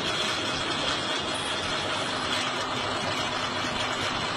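Steady engine and road noise of a moving vehicle, an even rushing rumble with no distinct impacts.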